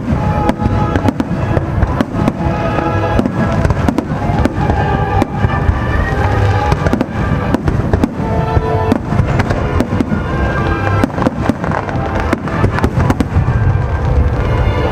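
Fireworks display: aerial shells bursting in quick succession with loud bangs and crackling, over a deep continuous rumble. Music plays along underneath.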